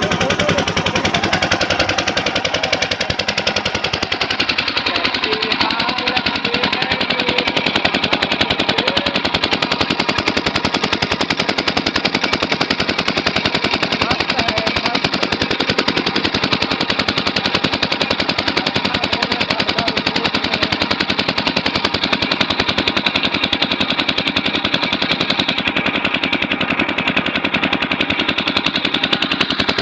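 Homemade borewell drilling rig running, a steady rapid rattling clatter.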